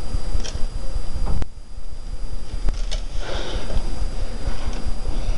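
Steady low rumble of background noise on a home voice recording, with a sharp click about a second and a half in and a short breath about three seconds in.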